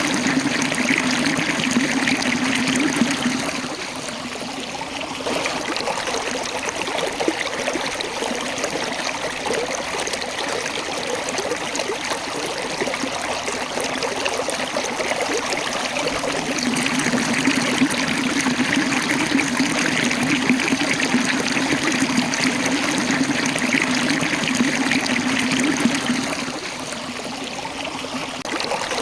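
Small waterfall: water rushing and trickling over rocks in a steady, continuous flow. It swells slightly louder for a few seconds at the start and again through the middle and later part.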